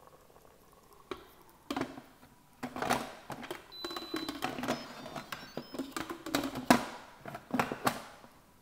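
An Instant Pot lid being set on the cooker and twisted shut: a run of irregular knocks and clicks as the lid meets the rim and locks into place.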